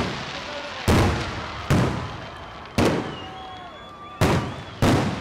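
Aerial firework shells bursting overhead: six sharp booms about a second apart, each fading off in a trailing echo.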